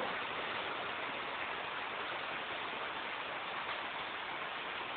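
Steady hiss of rain falling outside, with no distinct drips or knocks.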